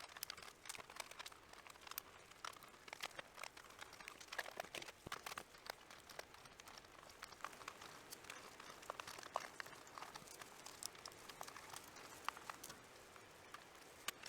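Faint, irregular light clicks and crinkling of things being handled on a workbench.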